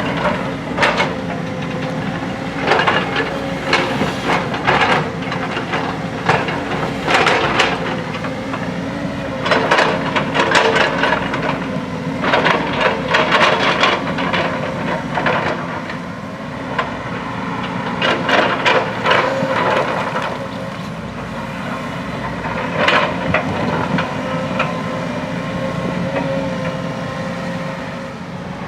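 JCB backhoe loader's diesel engine running steadily while it works, with repeated rough, noisy bursts a second or so long throughout.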